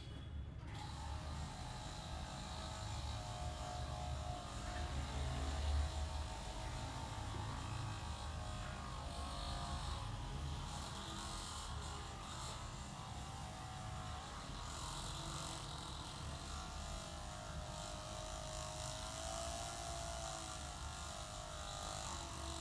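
Hands massaging the head and shoulders, giving a continuous rubbing of skin and hair over a steady low hum.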